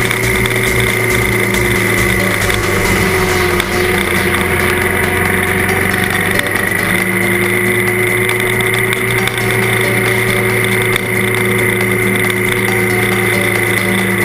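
Trail motorcycle engine running steadily at cruising speed on a dirt track, heard close from a camera mounted on the bike, with a slight dip in engine pitch a few seconds in before it settles back.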